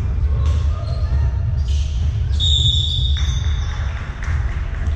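Basketball game sounds: a ball bouncing on the court over a steady low rumble, with a brief high-pitched tone about halfway through.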